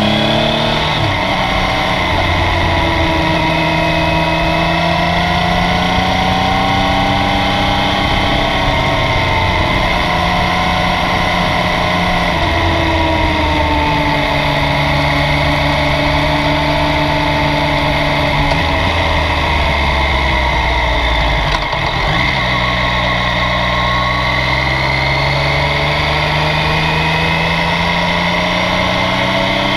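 Yamaha Tracer 900's 847 cc three-cylinder engine running under way. Its pitch rises and falls with throttle and gear changes, dips briefly a little after twenty seconds in, then climbs steadily toward the end.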